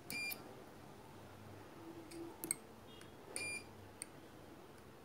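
Multimeter's continuity tester giving two short, high beeps about three seconds apart, with a few light clicks of the probe tips touching the circuit board. Each beep marks a point that has continuity to ground.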